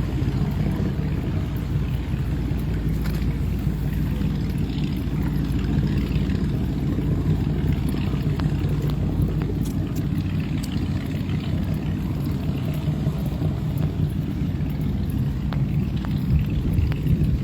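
Steady low rumble of a motorboat engine running at low speed, with faint ticks over it.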